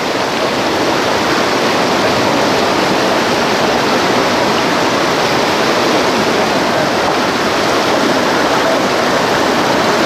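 The fast-flowing Köprülü River rushing: a steady, loud, unbroken rush of water.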